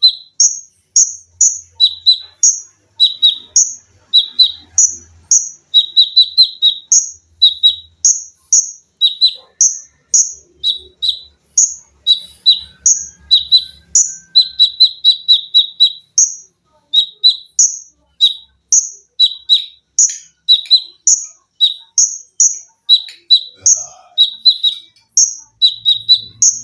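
Konin songbird singing nonstop: a rapid string of short, sharp, high-pitched notes, some higher and some a little lower, about two or three a second, sometimes packed into quick runs.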